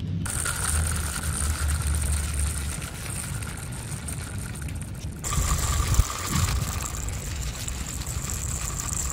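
Two small 9-volt DC motors of a homemade toy buggy switching on and whining steadily, the whine stepping down slightly in pitch about five seconds in, over a low rumble, with a single knock about six seconds in.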